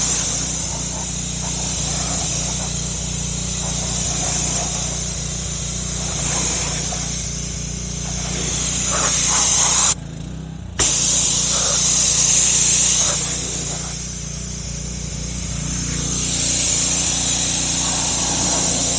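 Pressure washer spraying through a 16-inch undercarriage cleaner's nozzles under a car: a steady high hiss of water jets over a steady low hum. The hiss drops out for under a second a little past halfway.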